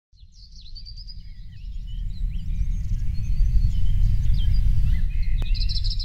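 Several songbirds chirping and trilling over a low rumble that grows louder toward the middle.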